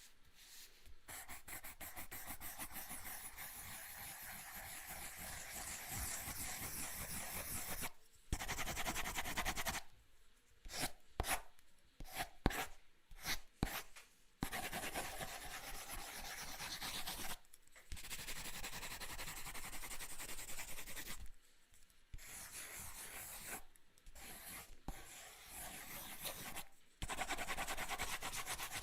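Drawing pencil scribbling on notebook paper, a dry scratching rasp in long strokes broken by short pauses, with a run of short quick strokes near the middle.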